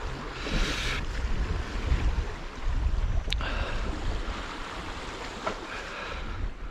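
Sea waves washing against rocks, with wind buffeting the microphone as a steady low rumble; a brief surge of hissing wash about half a second in, and a single sharp click a little past three seconds.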